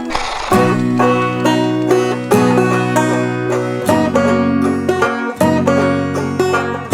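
Background music: a plucked-string, banjo-like tune with a bass line and a steady beat.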